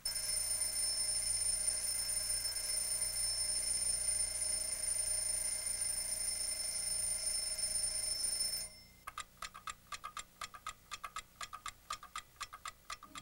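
Alarm clock ringing, a loud steady ring with several fixed tones, which cuts off suddenly about eight and a half seconds in. After that a clock's ticking carries on at about four ticks a second.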